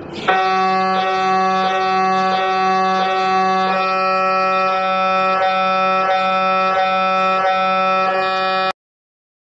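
MRI scanner running a scan sequence: its gradient coils give a steady buzzing tone with many overtones, pulsing about three times every two seconds. It stops abruptly near the end, then starts again after about a second.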